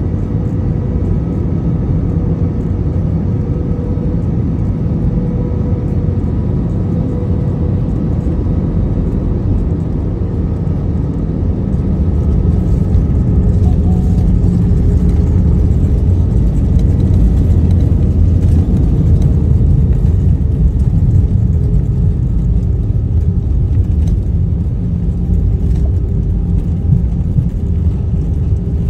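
Airbus A320 cabin noise: steady engine and airflow rumble on final approach, growing louder about twelve seconds in as the airliner touches down and slows on the runway, then easing off near the end.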